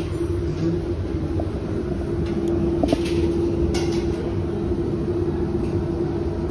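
Steady machine hum over a low rumble, with a few light clicks.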